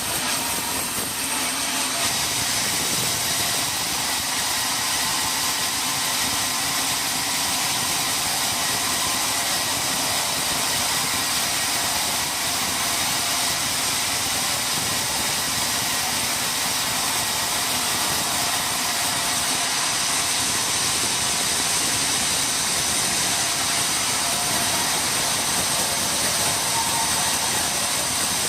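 Sawmill machinery running steadily: an even, unbroken mechanical noise with a faint high whine.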